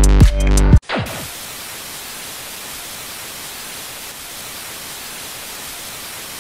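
Electronic dance music with a heavy beat cuts off under a second in, followed by a short falling tone and then steady TV-static hiss.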